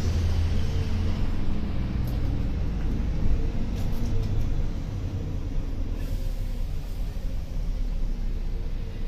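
Volvo Caio Procity city bus under way: its diesel engine running with a steady low road rumble, the engine note shifting up and down, and a few light rattles.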